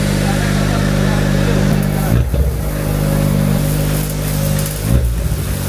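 Honda Civic Type R FL5's 2.0-litre turbocharged four-cylinder idling steadily through a Spoon exhaust with both resonators deleted, with two short throttle blips, about two seconds in and near the end.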